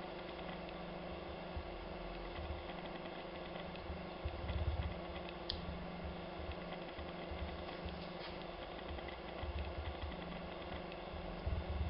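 Light mechanical clicks and knocks, with one sharp click about halfway through, over a steady low hum.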